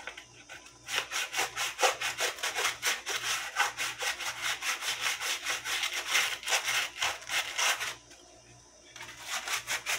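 Sandpaper rubbed by hand back and forth along a dry tree branch, quick rasping strokes about four a second, for a light sanding to even out the wood. The strokes pause for about a second near the end, then start again.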